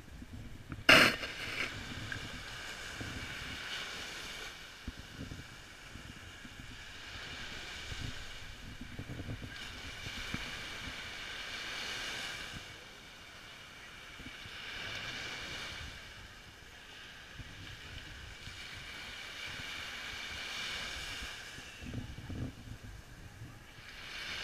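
Surf breaking and washing up the beach, swelling and fading every few seconds, with wind rumbling on the microphone. A single sharp knock about a second in is the loudest moment.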